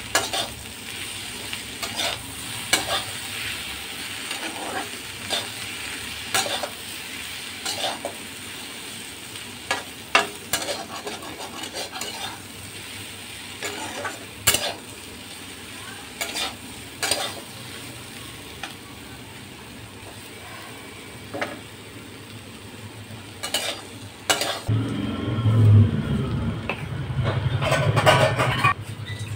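Ivy gourd (kundru) pieces with onion and spices sizzling in oil in a frying pan while a spatula stirs and scrapes them, with sharp scrapes every second or two. Near the end the stirring stops and a louder low rumble comes in.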